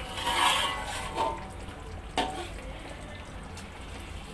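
Metal spatula stirring and scraping thick rendang around an aluminium wok. There is a wet scrape in the first second, a shorter one after it, and a sharp clink of spatula on pan about two seconds in.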